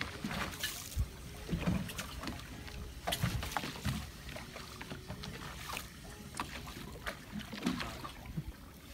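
Open-air noise aboard a small fishing boat at sea, with water and wind against the hull. Scattered short knocks and clicks come at irregular times as the rod and reel are handled during the retrieve.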